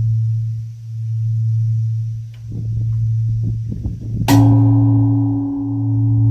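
Large bronze Buddhist temple bell (beomjong) humming, its low tone swelling and fading about every second and a half. About four seconds in it is struck again, a sharp hit that rings on with brighter tones over the hum.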